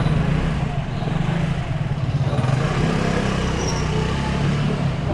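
A motor vehicle engine running close by, a steady low hum over street noise.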